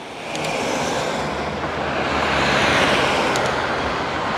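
Road traffic passing close by: a vehicle's tyre and engine noise swells over the first few seconds and eases off a little near the end.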